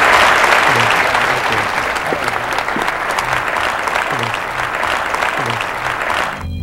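Audience applauding, the clapping slowly fading and then cutting off suddenly right at the end.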